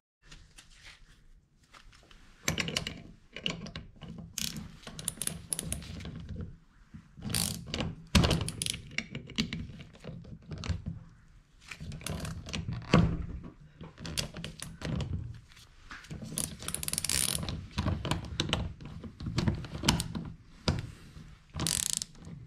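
Irregular metallic clicks and clunks of a hand tool turning a cube-type caliper piston tool, unscrewing a Honda rear brake caliper piston counterclockwise out of its bore.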